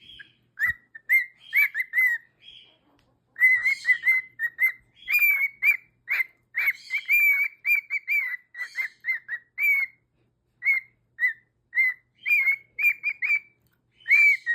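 Cockatiel singing: a fast string of short whistled notes, all near the same pitch, with a short pause about two seconds in.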